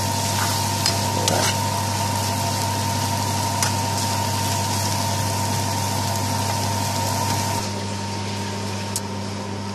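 A pan of spiced mushrooms cooking with a steady hiss over a constant hum, with a few light clicks. The hiss drops away about two seconds before the end.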